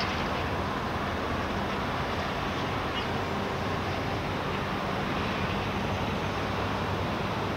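Steady rumble and hiss of ship-repair yard ambience, with a low steady machine hum underneath.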